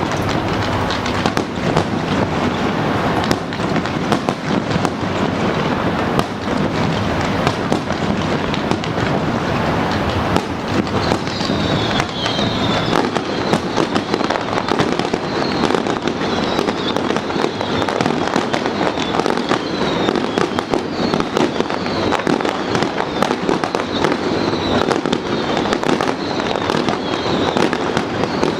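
A fireworks display going off in a dense, continuous barrage of crackles and bangs. Through the second half, short high-pitched falling whistles repeat every second or two.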